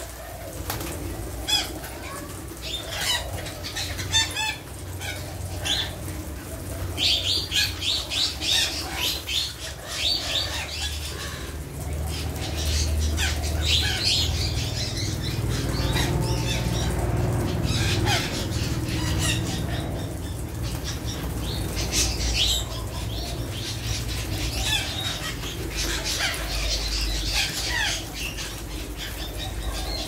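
A large flock of parakeets with wings flapping again and again as birds flutter up and settle, over many short high-pitched calls.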